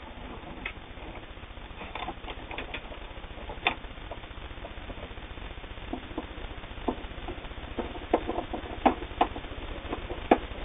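All-metal Viking Husqvarna Optima 150 sewing machine running a zigzag stitch: a steady mechanical hum with sharp clicks now and then, more of them in the second half.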